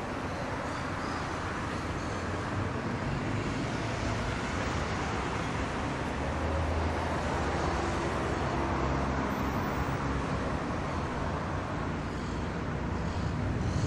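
City street traffic: a steady wash of passing cars and engines, with a deeper engine hum swelling around the middle.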